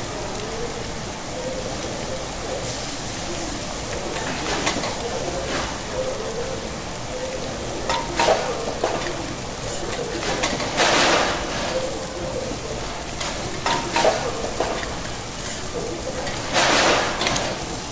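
Egg fried rice sizzling on a teppanyaki steel griddle while metal spatulas scrape and clack against the hot plate, chopping and spreading the rice, with several sharper scrapes along the way.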